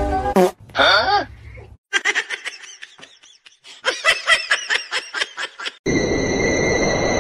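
A cat's meow, then a fast run of short, high chirping calls: a cat chattering. A steady hiss with a high whine comes in near the end.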